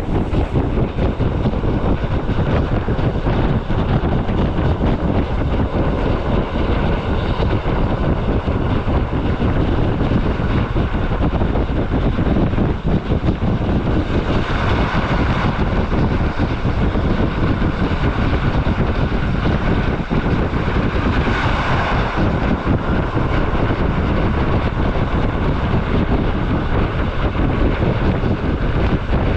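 Rhaetian Railway metre-gauge train running at speed: a steady loud rumble and roar of the ride, with two brief brighter whooshing swells, one about halfway through and another about seven seconds later.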